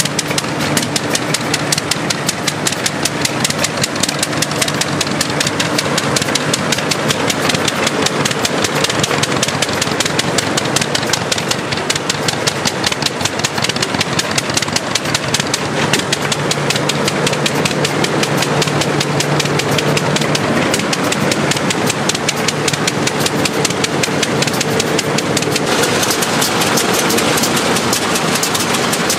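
Hart Parr 28-50 tractor engine idling with a rapid, even beat. Its character shifts slightly near the end.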